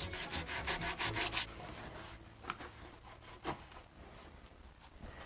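Sandpaper rubbed by hand over the varnished wooden case of a mantel clock, light sanding between coats to take off drips and brush marks. Quick back-and-forth strokes, about seven a second for the first second and a half, then fainter rubbing with a couple of light ticks.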